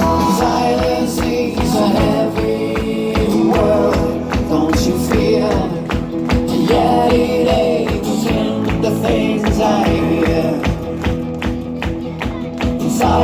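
Show music playing over the sound system: a steady percussion beat with a wavering melodic line, the lead-in to a sung ballad.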